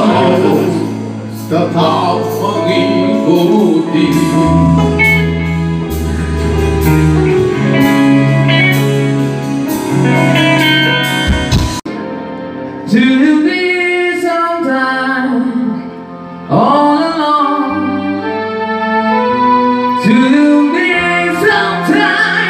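A live band plays a song with a singer over electric bass, electric guitar and keyboards. About halfway through, the low bass drops out and the voice carries on over lighter backing.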